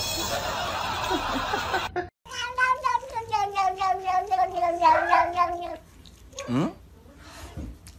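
Tabby cat giving one long, drawn-out wavering meow that slowly falls in pitch, then a short rising chirp. Before it, for the first two seconds, there is a rustling noise.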